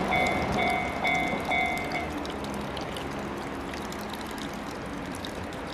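Level-crossing warning bell ringing as a repeating electronic clang, about two strikes a second, that stops about two seconds in as the crossing clears. The noise of the just-passed electric train fades under it to a steady hiss.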